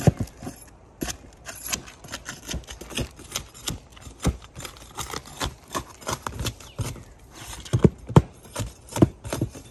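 A tool tapping and prying at asphalt roof shingles to loosen them, a run of irregular sharp taps and clicks, with a few louder knocks near the end.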